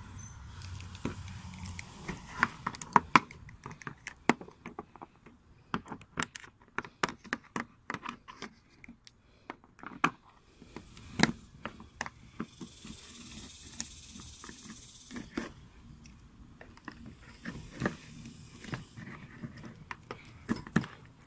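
Irregular clicks, knocks and scraping of a cutting tool and plastic as the glue holding a car's headlight assembly is cut and pried loose, with a few seconds of steady hissing scraping around the middle.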